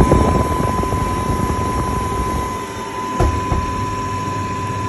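Scotsman flake-ice machine's refrigeration unit running, a steady mechanical hum with a thin high whine, and a short knock about three seconds in.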